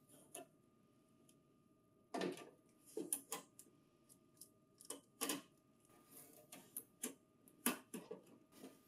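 Blue packing tape being peeled off the plastic housing of a printer offset stacker: a run of short, irregular rips and rustles, with the plastic unit knocking lightly as it is handled and turned.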